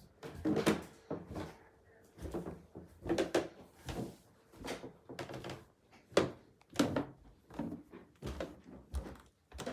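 Footsteps thudding down wooden stairs in an irregular run of knocks, about one or two a second.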